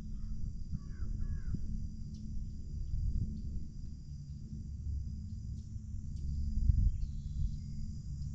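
Wind rumbling on the microphone over an open marsh. A bird calls twice in quick succession about a second in, over a faint steady high hiss.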